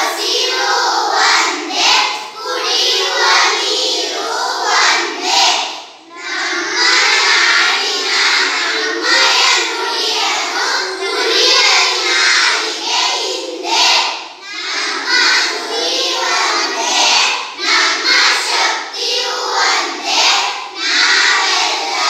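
A class of young children singing a song together in unison, with short breaks between phrases about six and fourteen seconds in.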